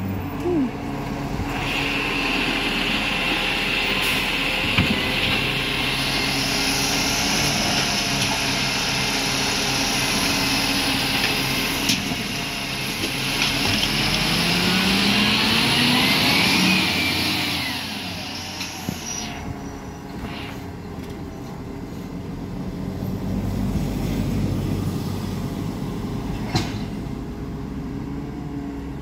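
Iveco Stralis side-loading garbage truck working at the kerb: its hydraulic bin-lifting arm runs with a steady high whine, while the engine revs up in rising pitch as the arm lifts and tips a bin, with a few sharp clunks. About two-thirds of the way through, the whine stops and the truck's diesel engine pulls away.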